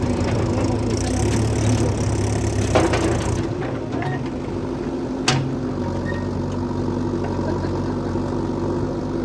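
Engine running steadily, with a sharp knock about three seconds in and another a little after five seconds.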